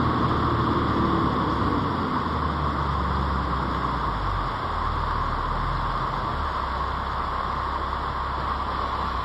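Toyota LandCruiser 80 Series four-wheel drive crawling slowly along a rutted dirt bush track, its engine running at low revs. The low engine note shifts a few times, under a steady hiss.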